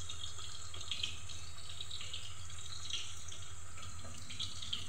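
Bitter gourds sizzling in hot oil in a kadhai: a steady hiss with small crackles and pops.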